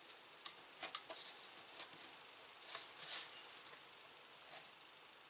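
Faint scratching and rustling of a paper template being marked and poked through with a pencil, in a few short bursts, the loudest about a second in and again about three seconds in.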